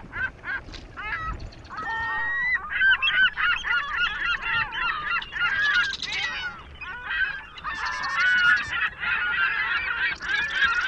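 A dense chorus of many overlapping honking, squealing animal calls, each gliding up and down in pitch. It is sparse at first and grows thick and continuous after about two seconds.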